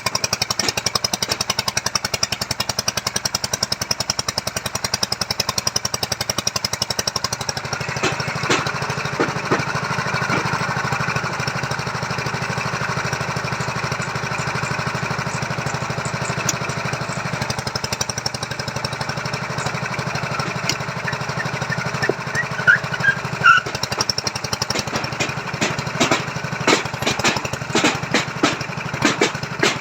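Small engine of a machine-driven foundation auger running steadily with a fast pulsing beat, turning rougher and noisier about eight seconds in, with sharp knocks in the last few seconds.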